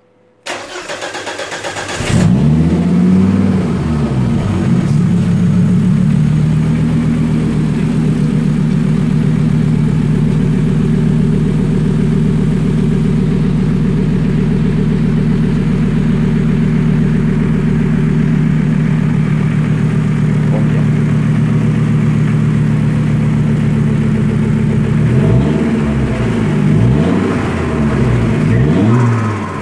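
Volvo T5 turbocharged five-cylinder engine's first start on a newly installed MaxxECU: the starter cranks for under two seconds, the engine catches and revs unevenly, then settles into a steady idle. Near the end the throttle is blipped several times, the revs rising and falling.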